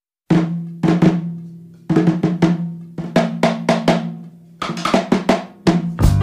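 Intro music: clusters of drum hits over a low held note, each cluster fading away before the next one starts.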